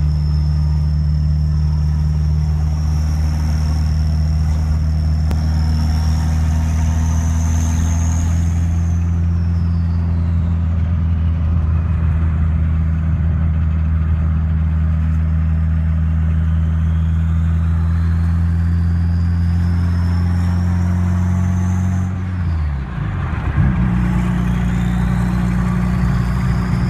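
Mitsubishi Lancer Evolution VIII's built 2.4-litre turbocharged four-cylinder cruising, with a steady exhaust drone and a loud, high turbo whistle from its EF4 turbocharger. The whistle climbs and peaks, falls away, then climbs again twice. Near the end the engine note dips briefly before picking back up.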